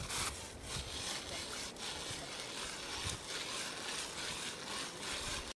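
Hand-cranked ice auger scraping steadily as its sharp tip blades bore into glacier ice.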